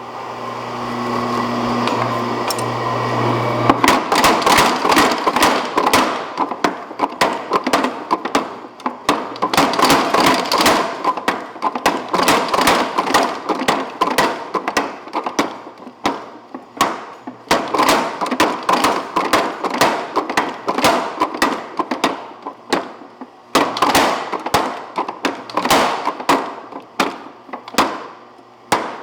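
Little Giant 250 mechanical power hammer: its motor hums steadily for the first few seconds, then the ram strikes in rapid runs of heavy blows with short pauses between, forging a hot square steel bar in a cross-peen forming tool.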